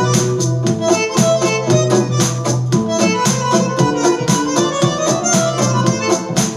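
Music with a steady beat and a moving bass line, played through Wharfedale 8-ohm, 100-watt speakers.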